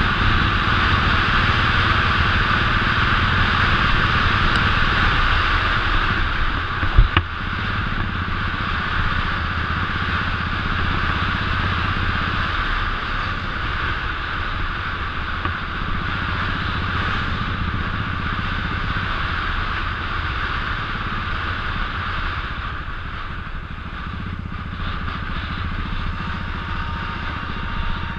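Royal Enfield 500cc single-cylinder motorcycle engine running at a steady cruise, its low beat heard from the rider's seat under a steady hiss of wind and road noise. A single sharp knock about seven seconds in.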